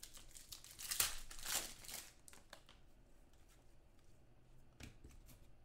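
Trading cards being handled: papery rustling and sliding as cards are picked up and fanned through, loudest between about one and two seconds in, then faint.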